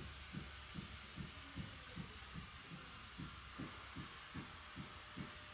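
Faint, regular low thumps, about two and a half a second.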